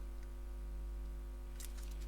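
Steady electrical hum with a low tone pulsing on and off, and a few faint light clicks of small tools near the end.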